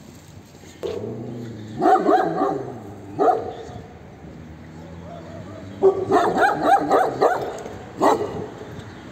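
Stray dogs barking in short runs: a few barks about two seconds in, a single bark a little later, a longer run of barks around six to seven seconds, and one last bark near the end.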